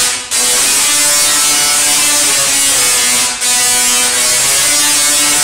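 Tesla coil sparks buzzing loudly with a crackling hiss, the buzz stepping from pitch to pitch like a played tune, as a singing Tesla coil does. It cuts out briefly twice, just after the start and a little past three seconds in.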